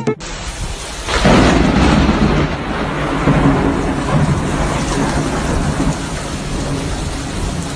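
A loud, steady rushing noise with a deep low rumble, swelling suddenly about a second in.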